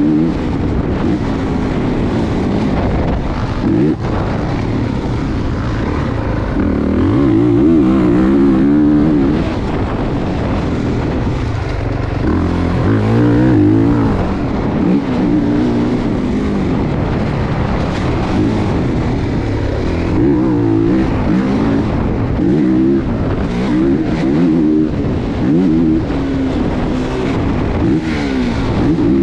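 Motocross dirt bike engine being ridden hard, its pitch climbing and falling off again and again as the throttle is worked.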